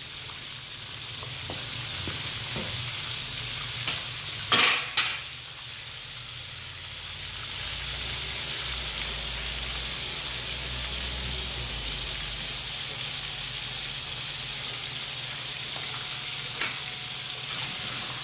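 Mud crabs deep-frying in a wok of hot oil, with a steady sizzle. A few sharp knocks come about four to five seconds in, and a lighter one near the end.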